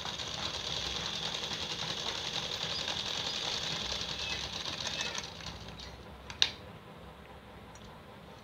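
Sewing machine running steadily as a seam is stitched, a fast, even run of needle strokes that stops about five seconds in. About a second later there is a single sharp click.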